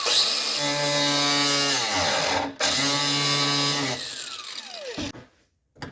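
Handheld electric power tool cutting away material: the motor spins up, runs at a steady whine, drops and stops briefly a little over two seconds in, runs again, then winds down with a falling whine near the end.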